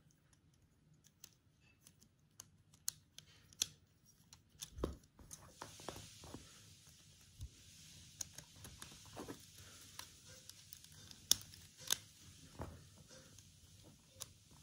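Plastic Lego Technic beams and pins clicking and snapping together as they are handled and fitted: scattered faint clicks, with two sharper snaps later on.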